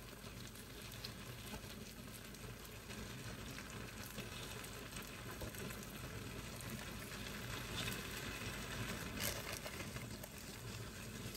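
Onions, tomatoes and broccoli frying with a steady sizzle in an enamelled wok, with a few soft knocks as handfuls of broccoli florets are dropped in.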